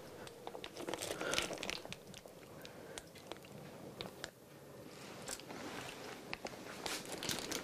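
Clear plastic piping bag crinkling and rustling in the hands as it is squeezed to pipe a creamy mixture, with scattered soft clicks.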